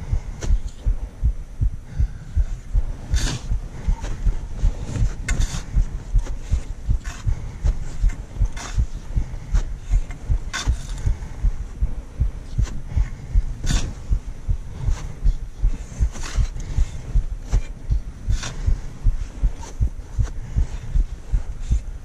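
Footsteps of a mountaineer climbing in snow: a steady rhythm of low thumps, with occasional sharp clicks.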